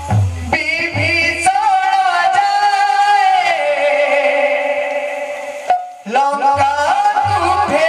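Kirtan music: a male singer holds a long, wavering note that glides down, with drum strokes near the start and again near the end. The music breaks off briefly just before six seconds in, then starts again.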